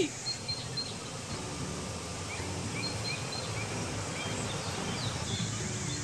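Steady outdoor background noise with a few faint, short bird chirps.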